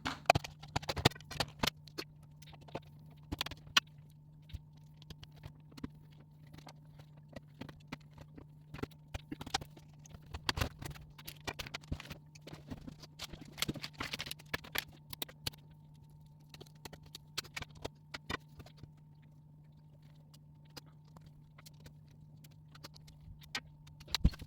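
Irregular clicks, taps and light scrapes of a laptop and small tools being handled as the laptop is stripped down, over a steady low hum.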